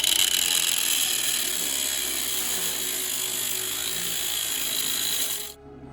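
Welding arc crackling steadily as a broken steering-system piece is re-welded, stopping abruptly about five and a half seconds in.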